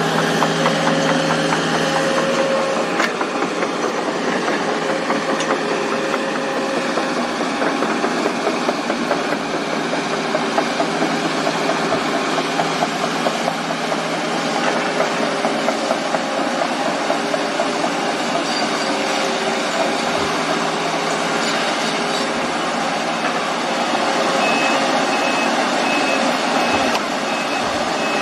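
Heavy construction machinery running steadily: an excavator's diesel engine and hydraulics working as it digs and loads soil into a dump truck, with small knocks from the bucket. Near the end, a backup alarm beeps evenly about twice a second.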